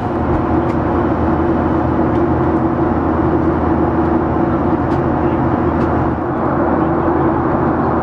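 Cabin noise of a Boeing 737-900ER in flight: the steady rush of its CFM56-7B jet engines and airflow, with a steady low hum underneath.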